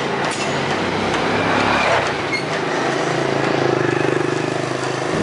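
An engine running: its pitch climbs between one and two seconds in, then it holds a steady hum.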